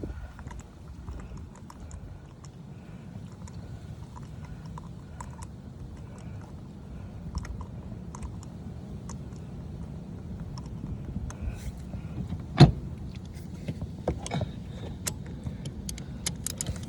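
Light metallic clicks and taps of a 5/8 spark plug socket on its extension as a new spark plug is threaded in by hand. One sharp metal click comes about twelve seconds in, and a run of clicks follows near the end.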